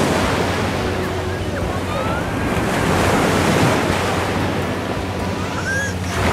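Small sea waves breaking and washing up a sandy beach, the surf swelling and easing every few seconds, with wind buffeting the microphone.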